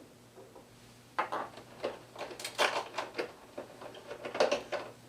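Robot toy parts clicking and knocking as they are handled and fitted together: a string of short, irregular clicks and clatters starting about a second in, loudest in the middle and near the end.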